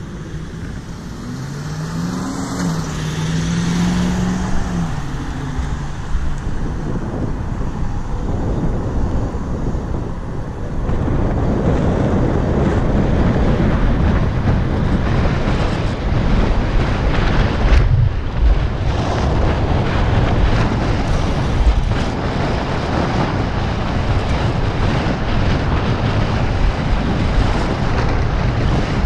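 Wind rushing and buffeting over the microphone of an electric scooter riding at speed on a street, with road noise underneath. Near the start a low hum rises in pitch and holds for a few seconds as the scooter pulls away, and the rush grows louder about ten seconds in.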